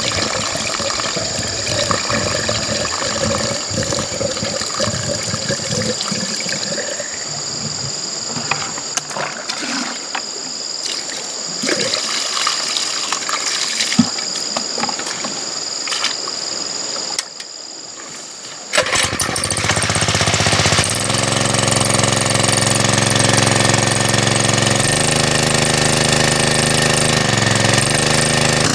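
Water poured from a bucket into the priming port of a small petrol-engine water pump, splashing for most of the first two-thirds. About two-thirds in, the pump's engine starts suddenly and runs steadily and loudly, its speed shifting a little as it settles while it pumps.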